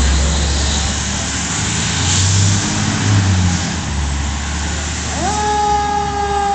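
Fire engine's Detroit Diesel Series 60 engine rumbling as the 2004 Seagrave pumper pulls away. About five seconds in, its warning signal comes on, sweeping up quickly and then held as a steady high tone.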